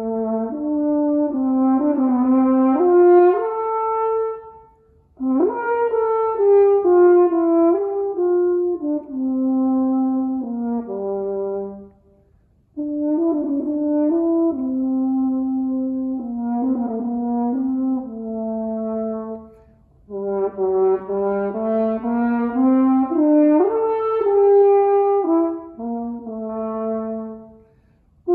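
Solo French horn playing a melody in four phrases of about seven seconds each, with brief pauses for breath between them.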